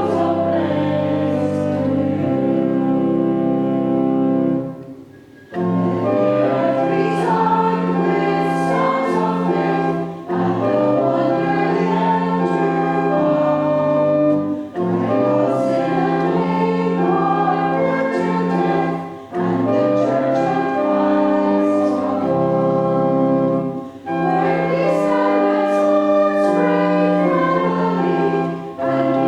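A congregation singing a hymn with instrumental accompaniment, in phrases a few seconds long with short breaks between them.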